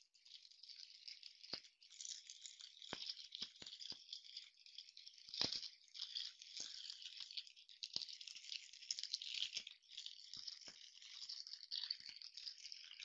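Faint rattling and rustling as the small parts of an LED light stand's mount are handled and fitted together, with scattered light clicks.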